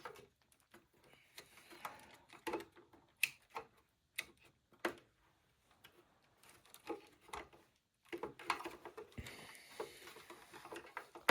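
Faint, irregular small clicks and taps from hands working on a treadmill's replacement power switch and its push-on wire connectors.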